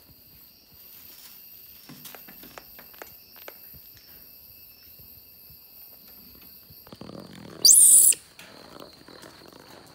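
A short, very high-pitched animal squeal, about three quarters of the way through and much the loudest sound. Faint clicks and rustling come before and after it.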